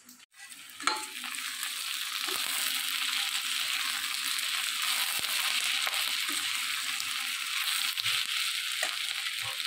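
Sliced onions sizzling in hot mustard oil in a stainless steel kadhai, stirred with a metal slotted spatula. The steady sizzle starts about a second in, with faint scrapes of the spatula against the pan.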